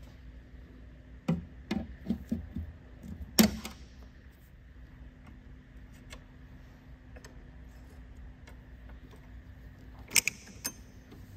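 Hand tools clicking and clinking on metal as a zip tie is cut and a wrench loosens a brake line fitting, with a sharp snap about three and a half seconds in and a few metallic clinks near the end.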